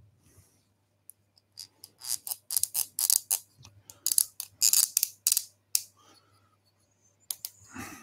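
Small scratchy clicks and scrapes as the legs of a small turned wooden bird are worked into drilled holes in its body: a quick run of short, sharp strokes from about a second and a half in until about six seconds.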